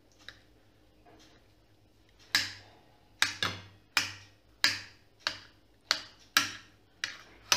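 Kitchen knife chopping through a soft roasted eggplant and tapping the plate beneath, starting about two seconds in: about a dozen sharp taps, roughly two a second.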